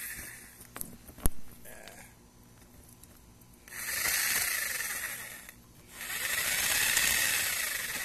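Sawzall reciprocating saw cutting through a plastic hinge end in two short runs of about two seconds each, with a sharp click before the first.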